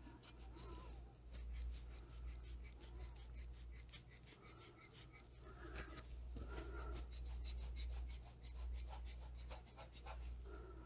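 Faint puffs of air and rubbing from a hand-squeezed rubber air blower bulb pushing wet alcohol ink across a tile, with soft swells in between, over a low steady hum.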